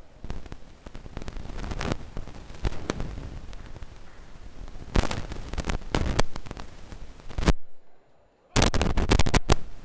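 Sharp slaps and thuds of boxing gloves landing and feet moving on the ring canvas, picked up close to the ring, in a rough, noisy bed. The sound drops out briefly about eight seconds in, then comes back loud.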